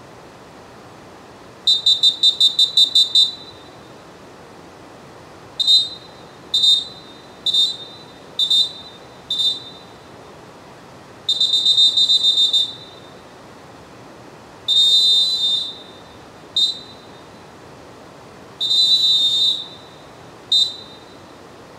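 Molten Dolfin Pro pealess referee whistle blown in a sequence of shrill blasts on one high pitch. First comes a quick run of about nine short toots, then five single short blasts about a second apart. After that, long blasts of a second or more, some with a fluttering pulse, alternate with single short ones.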